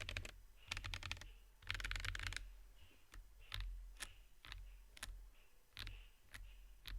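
IKKI68 Aurora R2 mechanical keyboard with Wuque Aurora Clear switches being typed on: three quick runs of keystrokes in the first couple of seconds, then single key presses about every half second.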